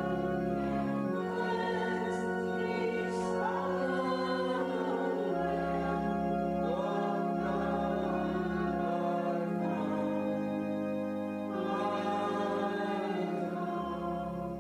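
Congregation singing a hymn over an accompaniment of long held chords, with the bass note changing every second or two.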